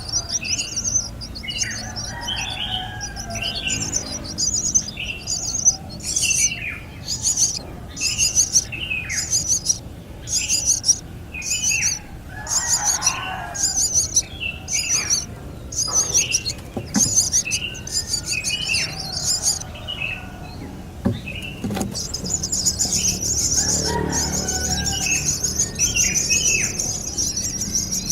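Birds chirping: high, buzzy chirps repeating about twice a second, with lower notes sliding downward between them. Near the end the high chirping runs on continuously.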